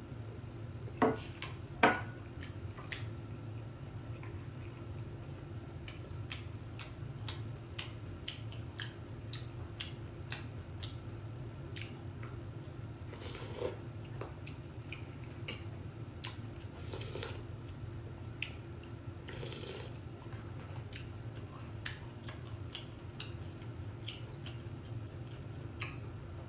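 Eating sounds: utensils clicking and clinking against dishes, with two louder clinks about a second and two seconds in, and a few short bursts of chewing noise, over a steady low room hum.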